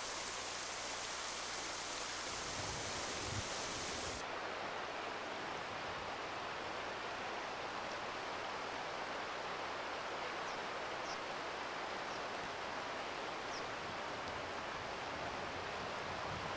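Steady rush of a shallow river running over a riffle, with a few low gusts of wind on the microphone in the first few seconds.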